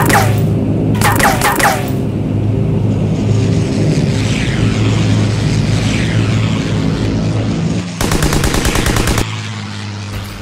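Sound effects of a World War II fighter plane: a steady low propeller-engine drone with short bursts of machine-gun fire at the start and about a second in, then a longer rapid burst near the end.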